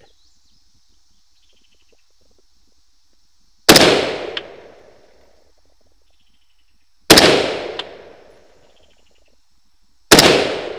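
Three rifle shots from a Daniel Defense rifle with an 18-inch barrel and SureFire compensator, fired a few seconds apart, each with a long rolling echo that trails off. The first two shots are each followed under a second later by a fainter, sharper crack.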